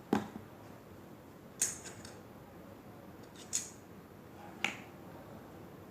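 Four short, sharp clicks and taps, one to two seconds apart, from handling play dough and its small plastic tools, over quiet room tone.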